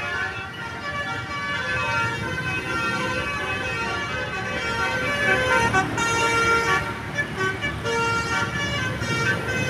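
A Basuri telolet horn on a bus plays a tune of short, stepping notes, with a low rumble underneath.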